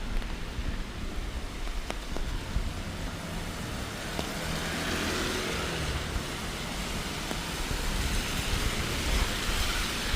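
Road traffic on a wet street in the rain: a steady low rumble of vehicles with a hiss that grows louder over the second half.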